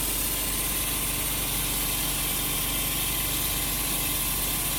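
Steady hum and hiss of running machinery, with a faint constant tone, unchanging throughout.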